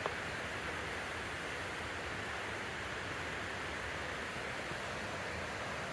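Steady rushing of a river running through a rocky ravine, an even hiss with no breaks, with a small click right at the start.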